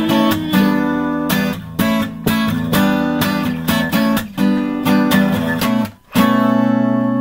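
Acoustic guitar strummed in a steady rhythm of chords. About six seconds in, the playing stops for a moment, then a last chord is struck and left to ring out, slowly fading.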